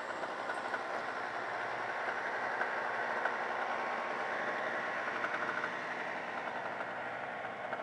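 Radio-controlled foam Cessna 310's twin electric motors and propellers droning in flight, swelling as the plane passes and easing off near the end.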